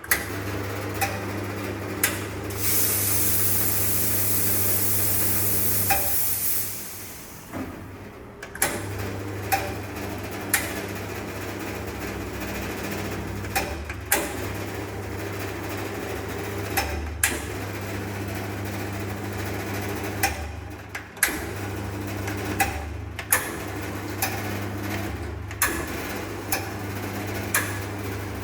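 Conti coffee machine running with a steady hum, broken by repeated sharp clicks as its buttons are tested. A loud hiss comes in about three seconds in and fades out about six seconds in.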